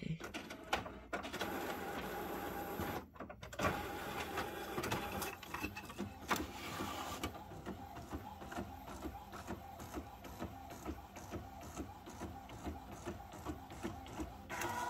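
Epson WorkForce WF-7710 inkjet printer printing a page. At first the mechanism whirs and clatters as the sheet is drawn in; from about halfway it settles into a fast, regular ticking as the print head works and the printed sheet feeds out.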